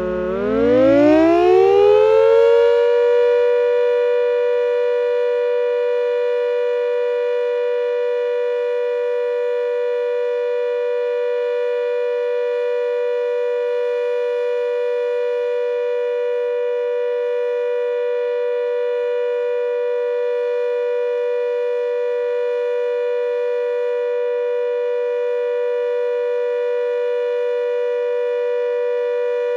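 Klaxon GP8 siren sounding in a routine system test. Its pitch dips at the start, then climbs over about three seconds to a steady tone made of two close pitches, and holds unchanged.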